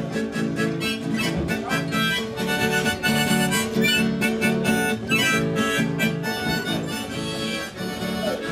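A harmonica in a neck rack played together with a strummed nylon-string classical guitar by one musician, steady rhythmic strumming under the harmonica's melody.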